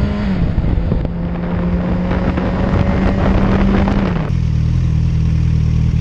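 Motorcycle engine pulling steadily at road speed with wind rush, a faint whine slowly rising in pitch. About four seconds in it switches abruptly to the engine idling steadily with no wind.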